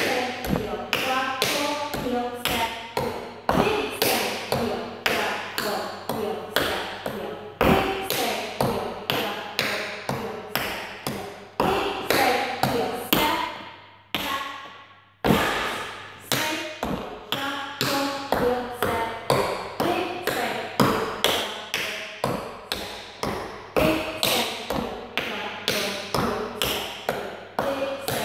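Tap shoes' metal taps striking a wooden floor in quick, rhythmic tap-dance patterns, with a brief pause about halfway through.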